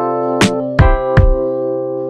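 Background music on a keyboard instrument: three struck notes about 0.4 s apart, then a chord left ringing and slowly fading.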